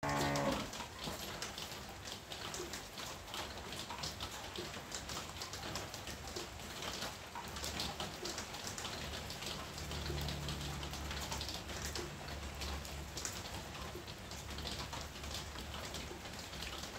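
Steady rain falling on garden foliage, with many separate drop hits throughout.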